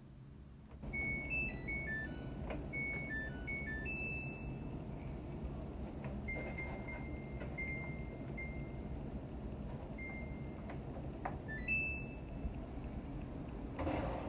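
Samsung Hauzen drum washing machine's control panel playing a short electronic tune, then a series of single beeps and a few more tones, over a steady hum from the machine that starts under a second in.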